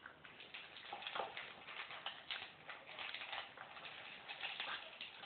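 Two small hairless dogs eating dry kibble from a bowl: a rapid, irregular run of crunches and clicks as they chew and their mouths knock the kibble about in the bowl.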